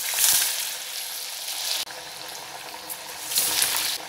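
Hot oil in a kadai sizzling loudly as a flattened patty of three-bean masala vada batter is slid in to deep-fry. The sizzle drops back a little under two seconds in and swells again a little after three seconds, as another patty goes into the oil.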